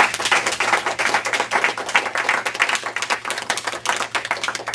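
A small audience applauding, many hands clapping quickly and unevenly.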